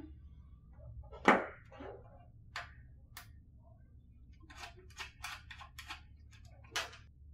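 Light clicks and taps of electrical wires and a coiled power cable being handled on a tabletop. The loudest comes about a second in, and a quick run of several follows later on.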